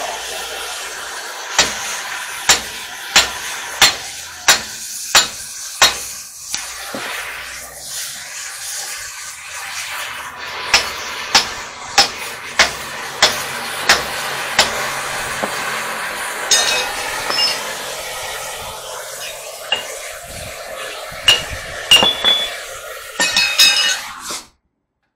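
Sledgehammer blows ringing on a steel drift bar held against a truck axle part, in two runs of sharp metal clanks at about one and a half a second, with scattered strikes later. Under them runs the steady hiss of a gas cutting torch heating the part.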